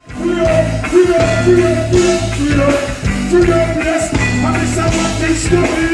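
Loud live reggae music with a heavy bass line, a regular beat and a held melody line, kicking in suddenly at the start.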